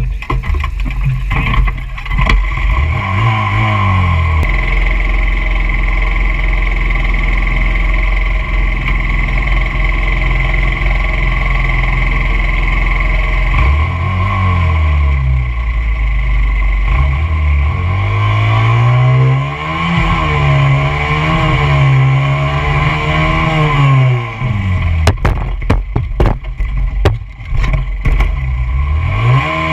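Small dirt bike's engine heard close from a bike-mounted camera, idling and revving up and down in repeated bursts, with a long stretch of quick rising and falling revs in the middle. A series of sharp clicks and knocks comes near the end.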